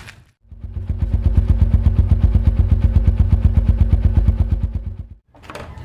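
Single-cylinder exhaust of a Z200S motorcycle idling, an even rapid putter of about ten exhaust pulses a second. It fades in about half a second in and cuts off shortly after five seconds.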